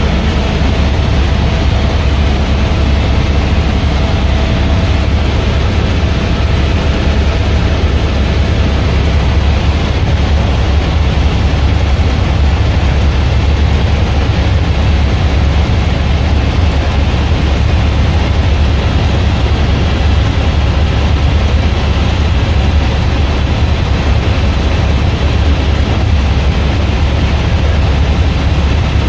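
Helicopter cabin noise in flight: the rotor and engine heard from inside the cabin as a loud, steady deep drone with an even hiss above it.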